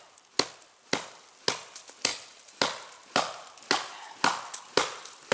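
Hatchet chopping into a small cedar trunk, a steady run of sharp strikes about two a second, cutting the wedge-shaped felling notch.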